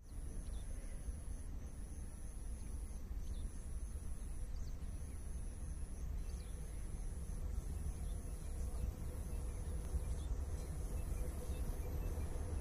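Wind rumbling on the microphone, with an insect's high, thin trill repeating in stretches of about a second and a half. A faint low hum comes in near the end.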